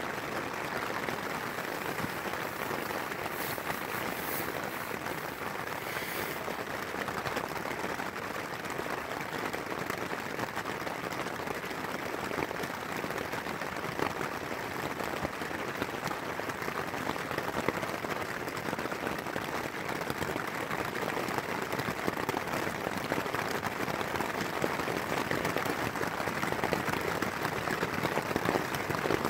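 A steady, even hiss of outdoor background noise with no distinct events, a few faint ticks in the first several seconds.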